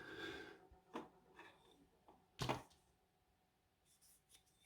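A handful of faint taps and clicks from handling lock-picking tools against a padlock, the loudest about two and a half seconds in, with near silence between.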